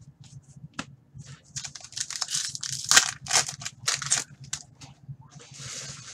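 Plastic foil card-pack wrapper from a Fleer Ultra hockey pack crinkling and crackling as hands crumple it. The crackles come thick and irregular in the middle, then ease into a steadier rustle near the end.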